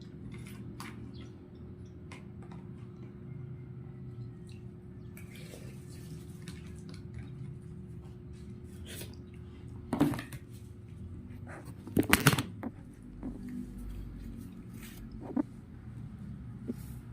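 Light clicks and taps of small hard objects being handled, with a loud knock about ten seconds in and a quick cluster of louder clatters about two seconds later, over a steady low hum.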